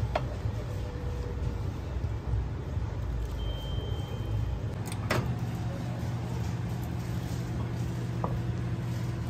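Hot water dispenser pouring hot water into a paper cup of udon noodles, over a steady low hum. A sharp click right at the start, a knock about five seconds in and a light click near the end.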